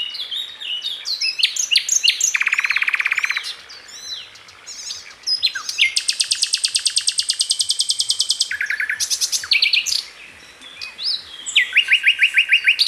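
Several songbirds chirping and singing over one another in quick, high notes and sweeps. About two seconds in there is a fast, even trill lasting about a second, from about six to eight and a half seconds a long rapid trill, and near the end another fast trill.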